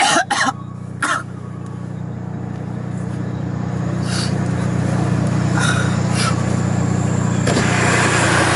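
A person coughing, two short harsh bursts in the first second or so, over the steady hum of a moving vehicle. The vehicle noise grows louder toward the end.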